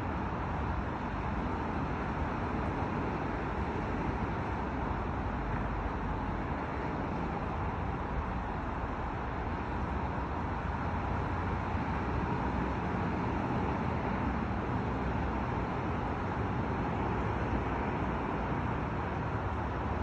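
Steady outdoor background noise: a low rumble with an even hiss above it, unchanging and without distinct events.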